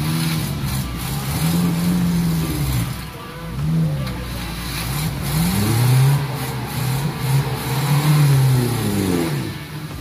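Suzuki Jimny engine revving up and down repeatedly as the 4x4 crawls through a shallow muddy river, its pitch rising and falling several times.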